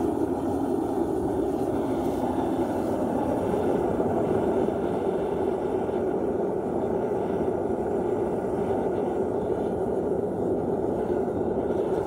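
Diesel burner firing a melting furnace, running steadily: an even, low rush of flame and forced air that holds the same pitch and level throughout.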